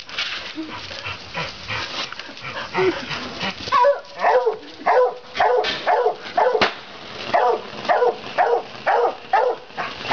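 A dog barking repeatedly, about two barks a second from about four seconds in, each bark dropping in pitch, over the hiss and crackle of a small ground firework spraying sparks. One sharp pop comes midway.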